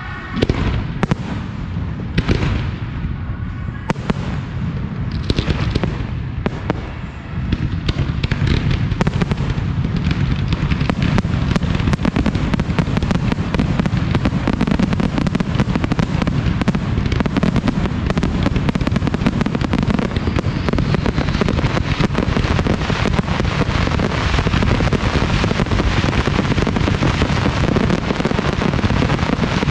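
Professional aerial fireworks display. A handful of separate shell bursts with crackling tails come in the first few seconds; then, from about seven seconds in, a dense unbroken barrage of booms and crackle.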